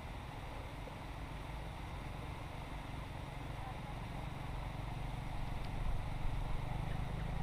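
A motorcycle engine running as it rides past, a steady low drone that grows louder near the end.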